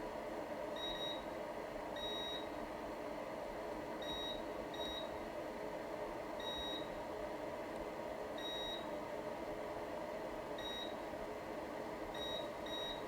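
Multimeter in continuity mode giving short, high beeps at irregular intervals, some brief and some held about half a second, as the probes touch points around an iPhone logic board's baseband power IC during a check for a short to ground. A steady low hum runs underneath.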